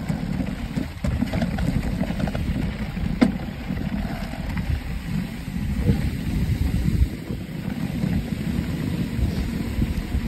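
Mountain bike riding fast down a rocky dirt trail: steady rumble and rattle of tyres and frame over the ground, with wind on the microphone and a sharp knock about three seconds in.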